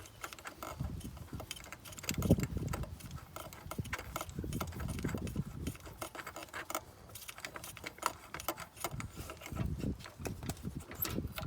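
Ratchet clicking and small metal tools clinking as spark plugs are unscrewed from a car engine, in irregular runs of clicks with a louder knock about two seconds in.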